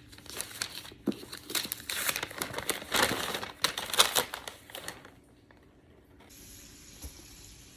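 Wrapping paper being crinkled and torn open for about five seconds as a box's contents are unwrapped, with many irregular crackles and rustles. After a short quiet gap a faint steady hiss starts about six seconds in.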